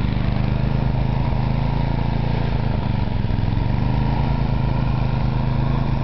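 Snowblower engine running at a steady speed.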